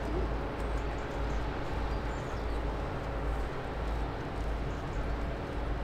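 Steady low rumble and machinery hum with several steady tones, from a large cruise ship moving past close by.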